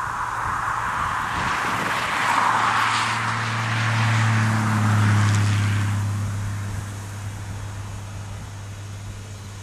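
Apolo series 2400 diesel railcar approaching: a steady low diesel engine drone, loudest about four to five seconds in, under a rushing noise that swells and then fades about six seconds in.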